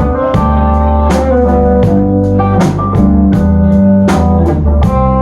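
Live band playing a slow, bluesy song between sung lines: guitar notes over a steady bass and a drum kit keeping time with regular cymbal strokes.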